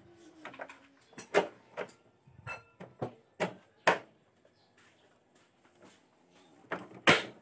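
Sharp metallic clicks and knocks of parts being fitted at a motorcycle front wheel's axle, disc rotor and brake caliper. There are a handful of separate knocks, with the loudest near the end.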